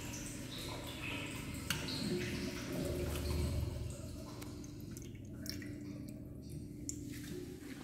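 Water flushing through an INAX U-431VR wall-hung urinal, easing off after about four seconds into a quieter trickle with a few drips.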